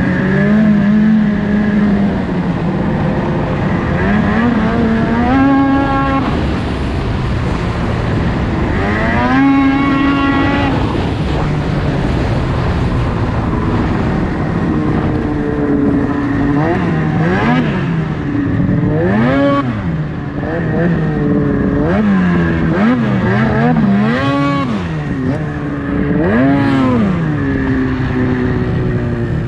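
Ski-Doo race snowmobile's two-stroke engine running hard, its pitch rising and falling again and again as the throttle is worked. Through the second half the revs swing up and down every second or two.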